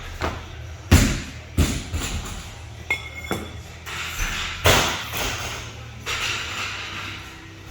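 Irregular heavy thuds and knocks of gym equipment landing during a workout, the loudest about a second in and again a little past halfway, over a steady low hum.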